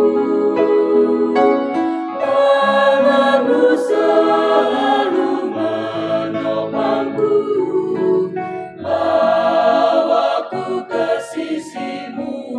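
Mixed choir of men's and women's voices singing a slow hymn in harmony, holding long chords that change every second or two.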